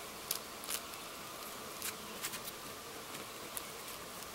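Faint, steady buzzing of a flying insect, with a few soft clicks and taps from hands working the trampoline mat's webbing and a pair of pliers.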